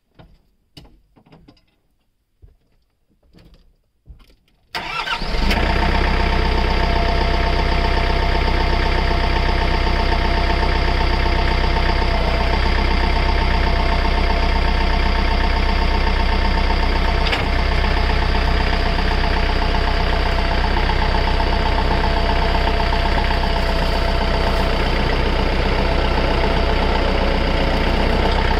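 A few faint knocks, then about five seconds in the RK55 tractor's diesel engine starts and settles at once into a steady idle.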